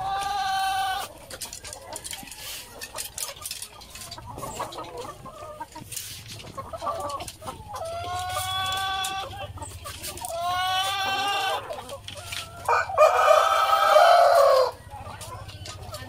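Chickens calling in a layer house: four long drawn-out calls of a second or more each, one at the start, two in the middle and the loudest near the end, with softer clucking in between.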